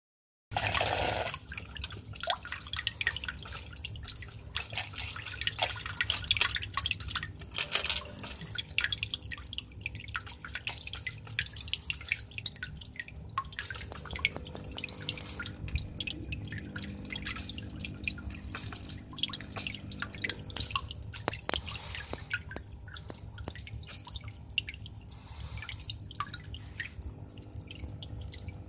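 Internal aquarium filter running: water from its outlet splashing and dripping at the surface over a steady low motor hum, with dense irregular clicks throughout.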